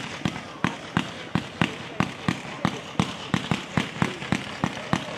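Fireworks display: a fast, fairly even run of sharp bangs, about three a second, as small aerial shells burst one after another.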